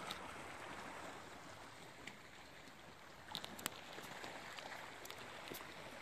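Faint steady wash of the sea lapping against the rocks below, with a couple of sharp clicks about three and a half seconds in.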